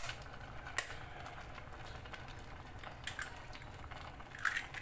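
A raw egg cracked on the rim of a metal pot and dropped into simmering noodle soup: a sharp click about a second in and a few more light clicks around three seconds in, over a faint steady simmer.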